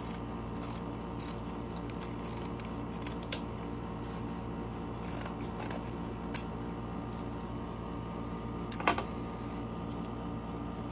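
Fabric scissors snipping through heavy canvas in a run of short, separate cuts over a steady hum, with a louder clack about nine seconds in.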